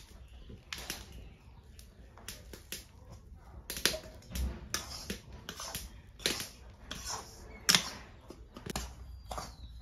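Metal spatula scraping and knocking against an iron kadai as dry rice flour is stirred and roasted, giving irregular sharp clicks and scrapes about once or twice a second.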